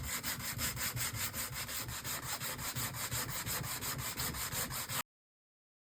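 Sandpaper rubbed back and forth on wood to take off paint, in quick even strokes of about five a second, stopping suddenly near the end.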